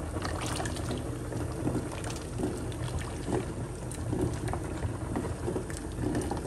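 Wooden spoon stirring a steel pot of simmering lentil stew: liquid sloshing, with scattered light knocks of the spoon against the pot, over a steady low hum.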